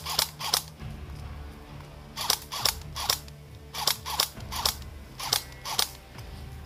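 Airsoft rifle firing single shots, about ten sharp pops in short groups of two or three.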